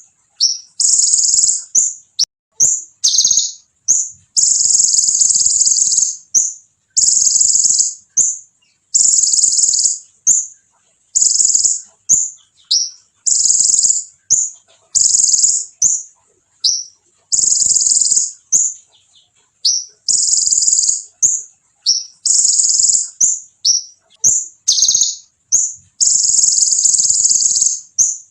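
Olive-backed sunbird (kolibri ninja) singing hard: high-pitched rattling trill phrases one to two seconds long, repeated every couple of seconds, with short sharp chirps in between.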